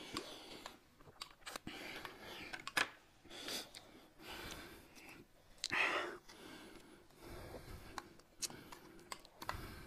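Eating and food-handling noises: soft irregular clicks, rustles and breaths, with a louder noisy burst about six seconds in.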